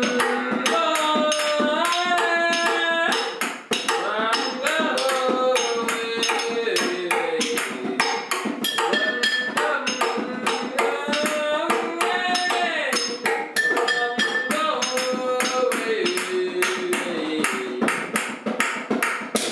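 Improvised jam: a voice singing a sliding melody with long held notes over fast, busy hand-drum playing on bongos and tapping on household objects such as a glass jar and chairs.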